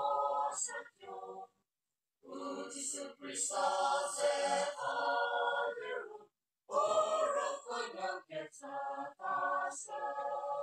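Mixed choir singing unaccompanied in sustained phrases, breaking off for brief pauses about a second and a half in and again around six seconds.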